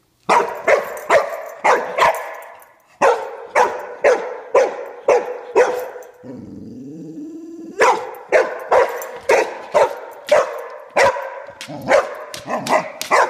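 A dog barking at a crab, about two sharp barks a second. The barking comes in long runs, broken about six seconds in by a quieter, drawn-out sound rising in pitch, before the barking starts again.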